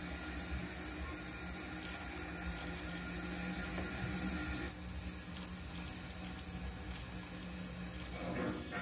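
Steady rushing hiss with a low hum as an O gauge model tank locomotive runs slowly along the track. The hiss drops off suddenly about halfway through.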